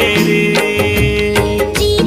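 Indian film-style background music: held instrumental notes over a steady, repeating drum beat.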